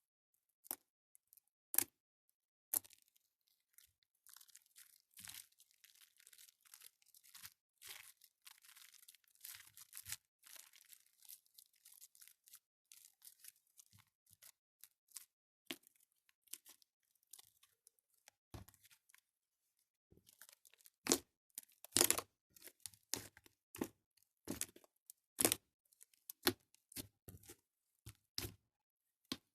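Slime being squished and worked by hand, making a dense run of small irregular clicks and pops. The pops grow louder and more spaced out about two-thirds of the way through.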